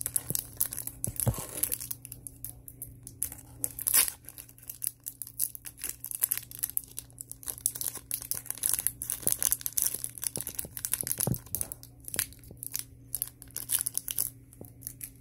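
Foil wrapper of a hockey trading card pack crinkling and crackling as hands twist and pull at it, trying to tear it open; the pack is hard to open.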